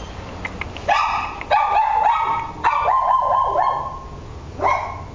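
A dog barking: about five sharp, high-pitched yelping barks, one of them drawn out near the middle, each dropping in pitch at its end.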